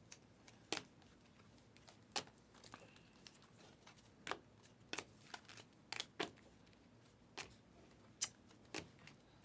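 Trading cards being handled and flipped through by hand: short, sharp card clicks and snaps every half second to a second or so, faint between them.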